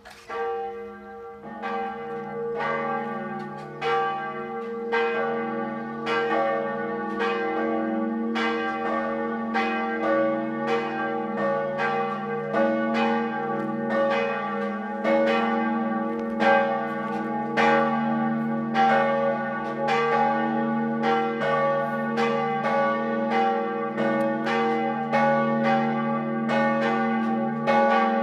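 Church bells swinging and ringing together, tolling the call to high mass, with overlapping strokes and a long hum that hangs between them. A deeper bell joins about a second and a half in.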